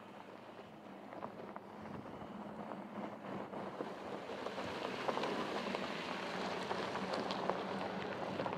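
Tyres of a Porsche Cayenne SUV crunching over a loose gravel track, with many small stone clicks and pops, over a low steady hum. It grows louder through the middle and eases off near the end.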